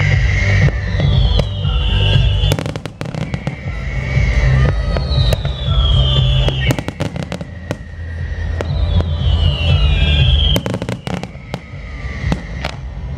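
Aerial fireworks display: many sharp cracks and crackling bursts over continuous deep booming rumble, with a falling whistle-like tone three times.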